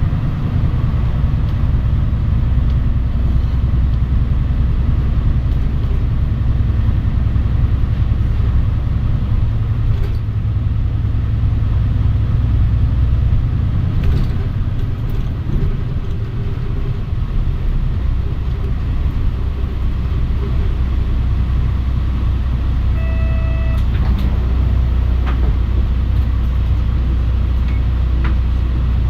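Mitsubishi Fuso Aerostar city bus heard from inside the cabin while driving: steady engine and road rumble, easing briefly about halfway through. A short electronic chime sounds once near the end.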